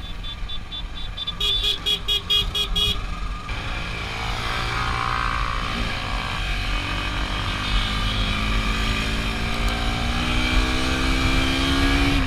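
Motorcycle engine running under way with a steady low rumble; from about four seconds in its note climbs steadily as the bike accelerates. A brief rapid run of high-pitched pulses sounds about two seconds in.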